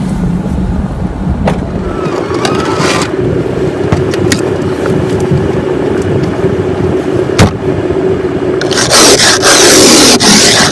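Ice scraper scraping frost off a car's windshield, heard from inside the cabin: loud repeated strokes starting near the end. Before it, a steady hum with a few knocks and one sharp thump about seven seconds in.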